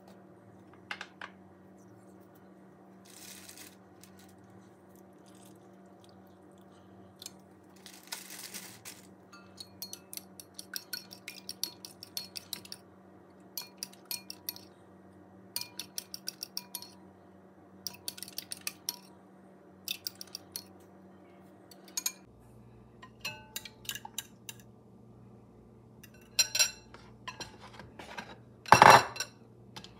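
Metal spoon clinking against a glass bowl as eggs are beaten, in quick runs of taps with short pauses. Near the end comes one louder knock as the glass bowl is moved on the wooden board.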